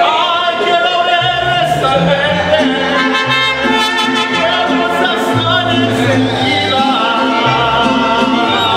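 Mariachi band playing live: a male lead singer over trumpets and violins, with guitarrón bass notes and strummed rhythm guitar coming in about a second in.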